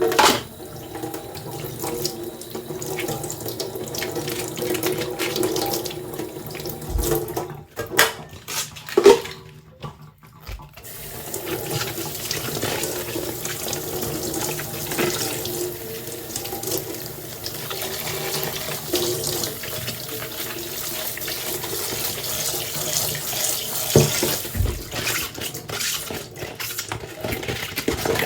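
Kitchen tap running into a sink while dishes are washed, with a few knocks of dishes. The flow briefly stops about a third of the way through, then runs again.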